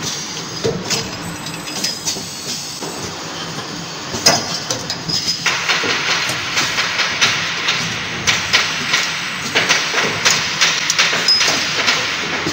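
Automatic CNC lathe with a feeder running: a steady machine hiss with rapid, irregular metallic clicks and clatter, which grow denser and brighter from about five seconds in.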